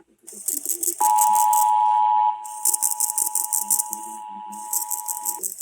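Emergency Alert System two-tone attention signal, a steady dual-pitch tone near 1 kHz. It starts about a second in, is loud for just over a second, then continues more quietly and cuts off near the end. A fast, high-pitched rattle repeats over it in bursts about a second long with short gaps.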